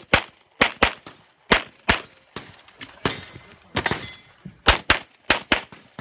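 Glock 35 .40 S&W pistol fired rapidly at close range: about a dozen sharp shots, mostly in quick pairs a fraction of a second apart.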